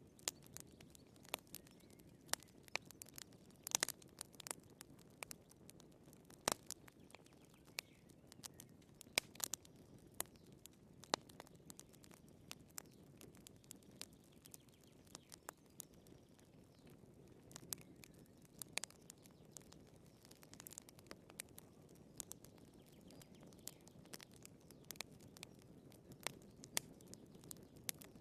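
Firewood burning in a fireplace, crackling faintly: irregular sharp pops and snaps, sometimes several in quick succession, over a soft low rush of the flames.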